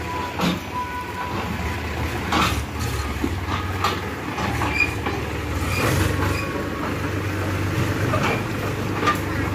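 Powertrac Euro 50 tractor's diesel engine running steadily as it tows a steel trolley past, with the trailer rattling and clanking over the rough lane.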